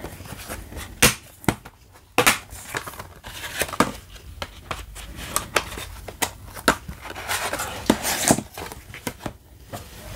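Plastic Blu-ray case and its glossy card slipcover being handled: a string of sharp clicks and knocks with crinkling and sliding in between.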